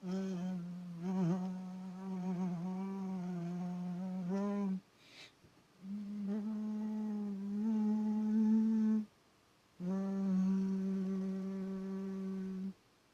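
A person humming three long held notes, each a few seconds long, with short pauses between them and small wavers in pitch.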